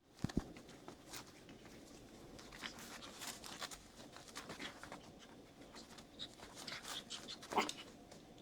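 Puppies scrabbling about, their claws scratching and tapping in many short, faint scrapes, with two low bumps at the very start and a louder scrape about seven and a half seconds in.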